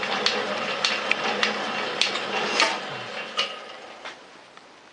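Metal shaper running while it cuts teeth on a lathe bull gear: a sharp click with each ram stroke, about two a second, over a steady machine hum. The strokes spread out and the sound fades away over the last couple of seconds as the machine runs down.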